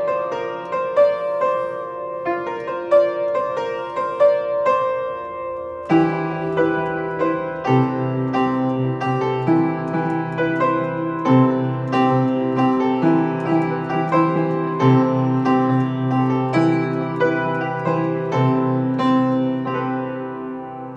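Piano music: a melody of evenly struck notes, with fuller, deeper chords joining about six seconds in.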